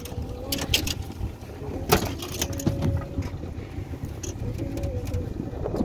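Snag hooks being handled and worked out of a paddlefish on a metal boat deck: a few sharp clicks and knocks over a steady low rumble.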